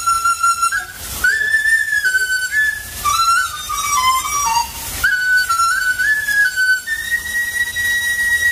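A Chinese folk melody played solo on a bamboo transverse flute (dizi). It comes in short phrases of stepping and sliding notes, and near the end a long high note is held.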